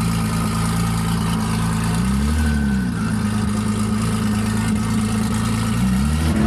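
Car engine idling steadily, with two short throttle blips that raise and drop its pitch, one about two seconds in and one near the end.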